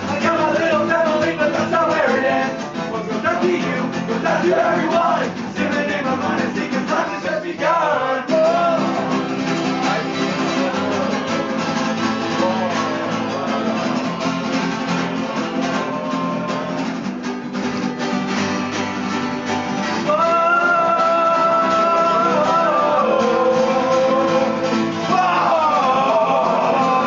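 Acoustic guitars played with a man singing along in a casual jam; the music gets louder about twenty seconds in.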